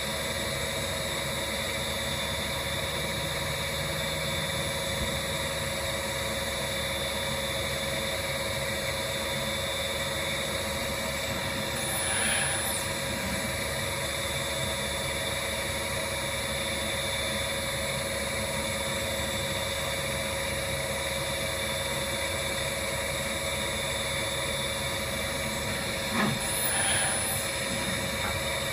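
CNC tool grinder running with a steady hum and a constant whine from its grinding-wheel spindle and drives. Twice, about twelve seconds in and again near the end, a brief swell comes with a short high whistle.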